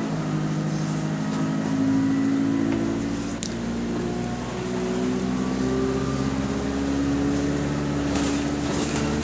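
Engine of London bus SE103 running under way, a loud droning note heard from inside the saloon whose pitch climbs, drops back about three seconds in and climbs again.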